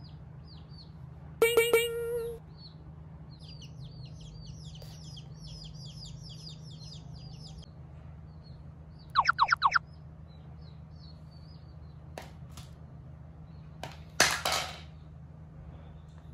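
Baby chicks peeping: a long run of short, high chirps, with a louder pitched call about a second and a half in and a quick burst of five loud peeps around nine seconds. A brief rustling noise near the end, over a steady low hum.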